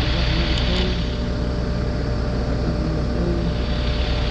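Heavy equipment engine running steadily with a low rumble, with two faint clicks about half a second in.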